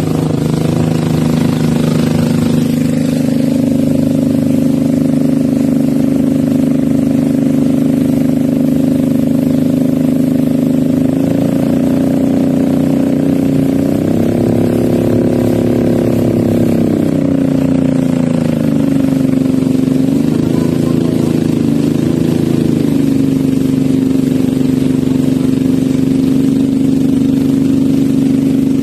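Boat engine running steadily. About halfway through it speeds up for a few seconds and drops back, then briefly speeds up and slows again before settling.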